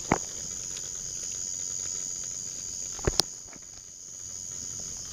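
Night insects trilling in a steady high-pitched drone, with a sharp firework pop at the start and two more in quick succession about three seconds in.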